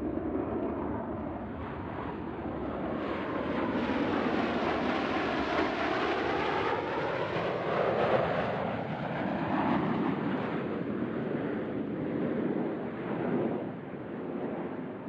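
An aircraft flying past: a rushing noise that swells and then fades, with sweeping bands that glide down and up in pitch as it passes.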